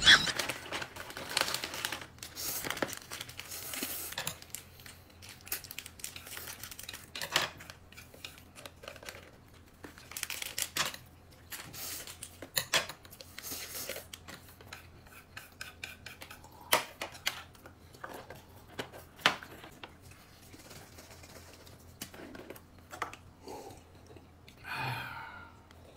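Intermittent handling noise: crinkling and tearing sounds with light clinks of dishes, and short sharp clicks scattered irregularly throughout.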